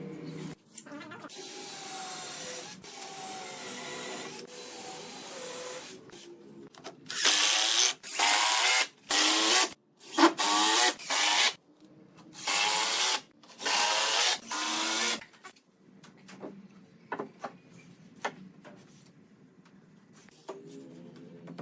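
Woodworking tool working on wood: a steadier rasping for the first few seconds, then a run of loud strokes about a second each, then scattered light taps and knocks.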